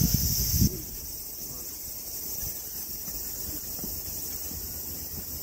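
Outdoor insect chorus, a steady high-pitched shrilling with a low rumble beneath it, that cuts off abruptly under a second in. A much quieter outdoor background follows.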